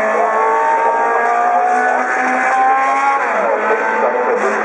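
Classic Formula 1 racing car engines at high revs. The pitch climbs for about three seconds, then drops as the throttle is lifted.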